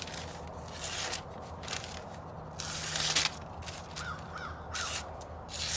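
A knife blade being sharpened in light, irregular strokes, each a short hiss. A crow caws three times about four seconds in.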